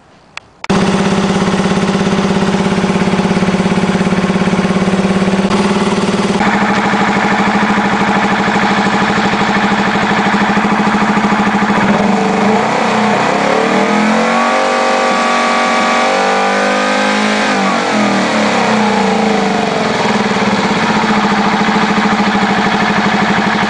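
Suzuki GSX250S four-cylinder engine starting about a second in on its first run after the carburettors were rebuilt and refitted, then running steadily. Midway the revs rise over a few seconds, hold, and fall back to idle.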